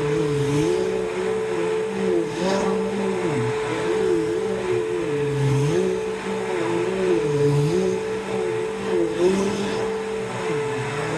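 Bissell PowerForce Bagged 3522 upright vacuum cleaner running on carpet, a steady motor whine with lower tones that dip and recover every couple of seconds. It is running set low to the floor because its height-adjustment axle is broken.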